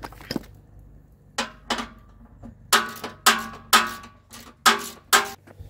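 A series of about eight sharp metallic clanks with a ringing tone: a tool striking the steel mower deck while the kicker plates are bolted in. The later strikes, about half a second apart, are the loudest.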